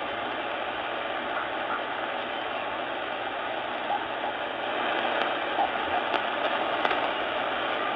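Sangean ATS-909X2 shortwave receiver in upper sideband mode giving a steady hiss of band noise while tuned slowly across empty utility frequencies around 5.4 MHz. A few light clicks come in the second half.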